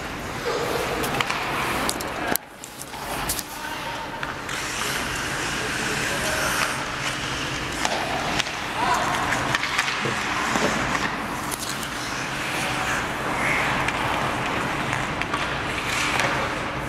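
Ice hockey play: skates scraping on the ice and several sharp clacks of sticks and puck, with players' voices calling out.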